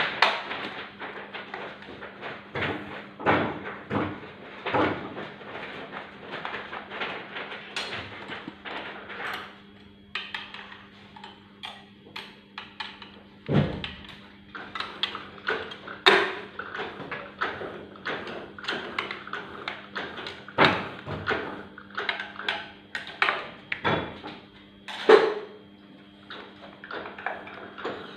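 Oliver 6 offset printing press running: a steady hum under a continual clatter of clacks and knocks, some much louder than others.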